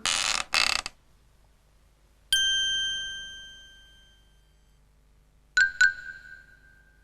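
Two short rattling bursts, then a single bell-like ding that rings out and fades over about two seconds, and near the end two quick dings at the same pitch.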